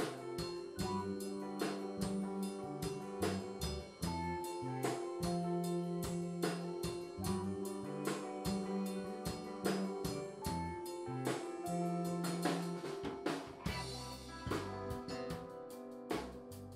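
Background music: a band track with a drum kit keeping a steady beat over shifting low bass notes.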